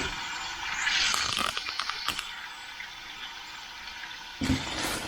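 Back bacon frying in a pan: a steady sizzling hiss, with a few clicks and rattles about a second in and a louder bump near the end.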